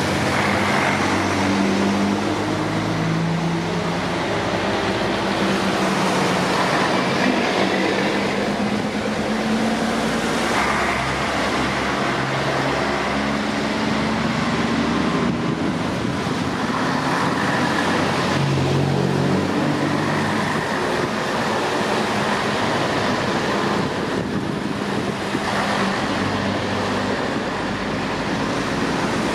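Vintage Scania-Vabis bonneted trucks' diesel engines running as the trucks drive past one after another. A continuous rumble whose low engine note holds steady and then shifts in steps every second or so.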